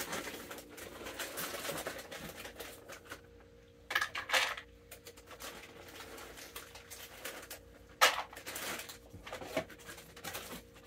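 A bag of peanuts in the shell being handled: papery rustling and light clattering, with short louder bursts about four and eight seconds in.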